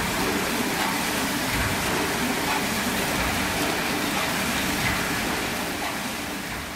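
Log debarker (rounding-up machine) running, its cutter knife shaving bark off a log turning on the driven rollers: a steady grinding, rushing noise with a rumble underneath, fading out near the end.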